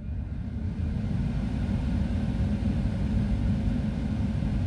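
BMW F30 cabin blower fan running at full speed, with a steady rush of air from the vents. The motor's faint whine rises and levels off about a second in as the fan finishes spinning up.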